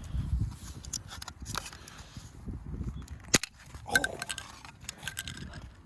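Plastic fire-alarm heat detector being kicked about on the ground: a scatter of sharp knocks and clicks, the loudest about three and a half seconds in, over a low rumble.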